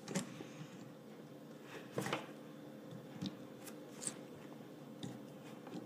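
Hands handling a stack of fidget spinners: about four small, faint clicks and rubs scattered over a quiet room, with a faint steady hum underneath.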